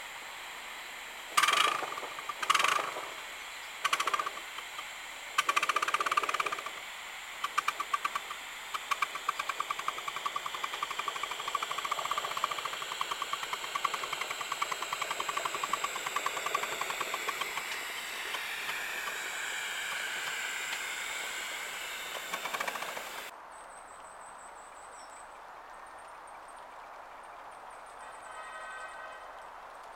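Miniature GWR-style steam tank locomotive No. 5806 pulling away with a passenger train: a few separate loud exhaust chuffs, then quickening beats that run into a rapid, even chuff and gradually fade as it draws away. After an abrupt change about 23 s in, only quiet outdoor ambience with faint high bird chirps remains.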